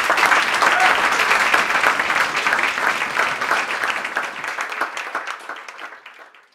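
Audience applauding loudly at the close of a talk. The clapping fades over the last couple of seconds and then cuts off.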